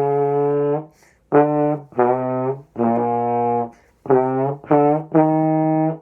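Trombone playing a short warm-up: a series of about seven separate held notes with short breaks between them, the pitch moving between a few notes.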